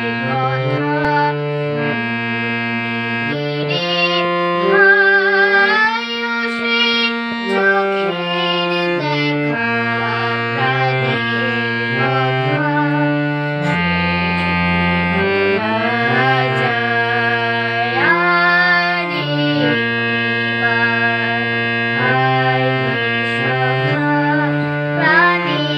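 Harmonium playing a tune in held notes that step from one to the next, with a boy singing along over it.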